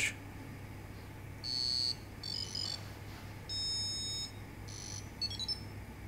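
Signal R2 model-rocket flight computer's onboard buzzer playing its power-on startup beeps: a run of about five short, high electronic beeps and warbling tones beginning about a second and a half in, as it goes through its startup checks.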